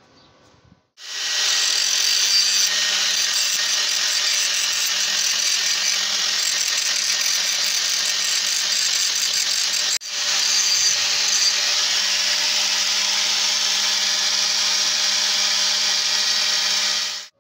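Angle grinder running with its disc against the steel of an old masonry trowel, a steady high whine that starts about a second in, drops out for an instant near the middle, and stops just before the end.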